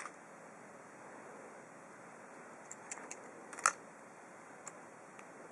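Faint clicks and taps of a small clip-on flashlight being handled, its body unscrewed into two pieces; a handful of light clicks, the sharpest about three and a half seconds in, over a low steady hiss.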